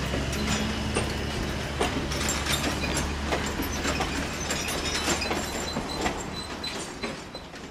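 A slow passenger train rolling through the rail yard: a steady low rumble with scattered clicks and clanks from the wheels and cars, fading near the end.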